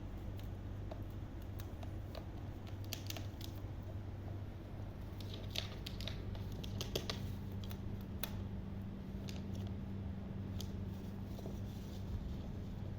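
Baby parrot's claws and beak scratching, tapping and nibbling on surfaces, in scattered small clicks and scrapes, busiest a few seconds in, over a steady low hum.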